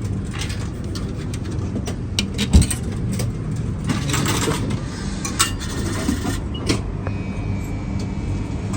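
Old burger vending machine running with a steady low hum while it prepares a burger. A few clicks sound over it, with one sharp knock about two and a half seconds in, and a thin high tone starts near the end.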